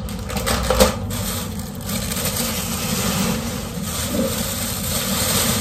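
Plastic grocery bags and packaging rustling and crinkling as items are rummaged through and a bag is pulled out.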